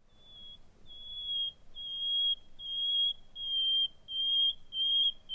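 Common nightingale singing: a slow series of about eight long, pure whistled notes on one pitch, growing steadily louder, the bird's crescendo phrase.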